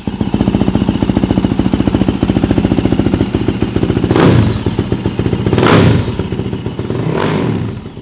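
2023 Yamaha YZ450F's single-cylinder four-stroke engine idling with a fast, even firing rhythm, then revved three times, about a second and a half apart, each rev climbing and dropping back to idle.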